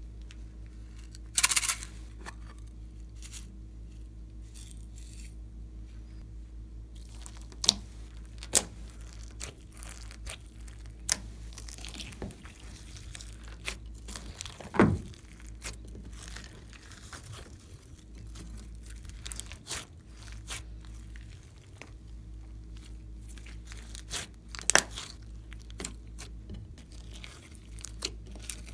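Hands pressing and stretching glossy slime loaded with sequins and glitter in a glass dish, giving sharp pops, clicks and crackles. These are sparse at first and come thick and fast from about seven seconds in, over a low steady hum.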